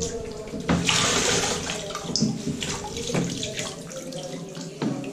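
Rubber grout float being scrubbed over the grid insert of a water-filled grout washing bucket: water sloshing and splashing, with a burst at each of several strokes.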